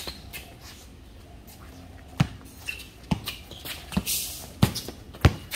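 Basketball bouncing on a hard court: five sharp bounces from about two seconds in, under a second apart, with a short scuffing hiss about four seconds in.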